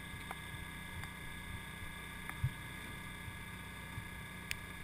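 Steady mechanical hum and drone of an electrofishing boat's motors running, with a few faint knocks about halfway through and near the end.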